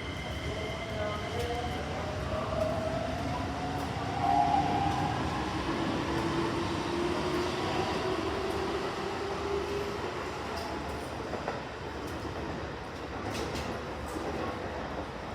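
Keikyu electric train pulling out of the station: the traction motor whine rises steadily in pitch as it accelerates, over the rumble of the wheels on the rails, with a few light clicks from the wheels near the end.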